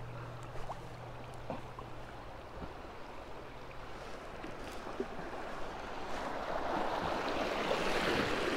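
Rushing water of a river riffle, growing louder about six seconds in, with light drips and splashes from a kayak paddle.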